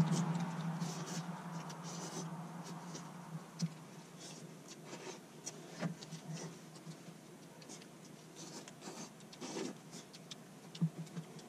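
Light clicks, taps and scrapes of chopsticks and a fork against small food containers, with soft rustling of clothing, as people eat. A low hum dies away over the first few seconds.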